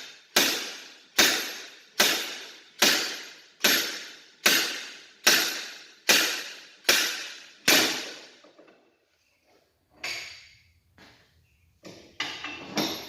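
About ten hammer blows on steel, evenly spaced a little under a second apart, each ringing briefly as the axle shaft is knocked loose from the differential. A couple of lighter clanks follow near the end.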